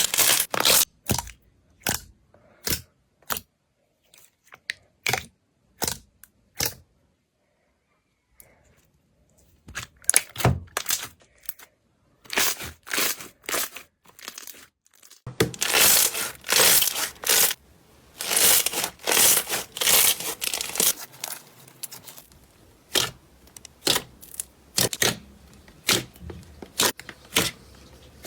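Slime being pressed and squeezed: a run of short crackling, crunching pops. They stop for about three seconds a third of the way in, then come back in denser runs.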